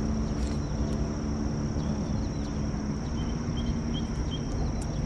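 Steady high-pitched insect drone, typical of crickets, over a low outdoor rumble, with four short high bird chirps about three seconds in.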